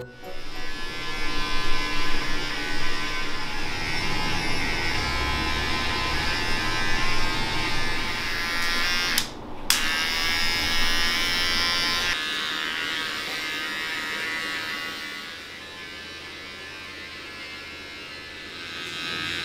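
Small cordless pet trimmer buzzing steadily as it trims the fur on a schnauzer's paw. The buzz drops out briefly about halfway, then carries on at a lower level, quieter again for the last few seconds.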